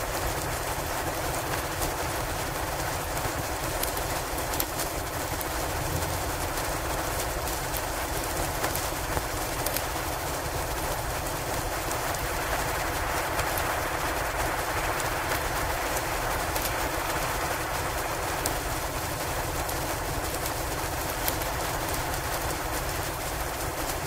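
Snowstorm ambience: a steady hiss of wind and blowing snow, with faint scattered clicks throughout.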